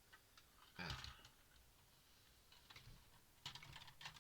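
Faint handling noise of hard plastic Lego pieces: a soft thump about a second in, then a few sharp light clicks near the end.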